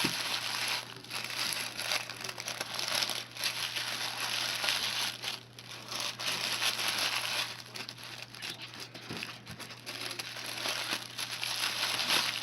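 Layers of checkered tablecloth being scrunched and gathered by hand into a flower, giving a continuous irregular crinkling that eases briefly about halfway through.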